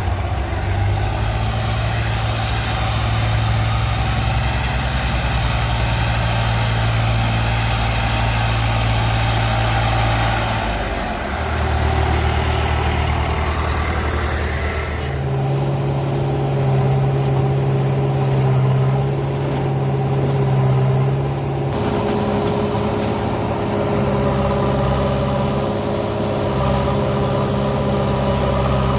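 Heavy diesel engines running steadily, their note changing abruptly about 11, 15 and 22 seconds in.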